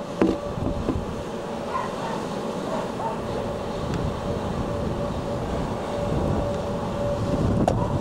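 Gale-force blizzard wind rumbling and buffeting, with a gust swelling strongest near the end. A steady mid-pitched whistling tone fades in and out over the rumble: the strange noise.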